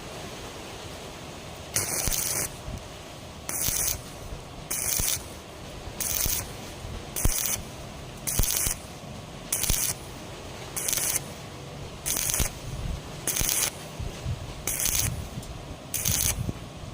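Welding arc struck in short bursts, about a dozen half-second crackling hisses at an even pace of roughly one every second and a quarter, as in stitch or tack welding.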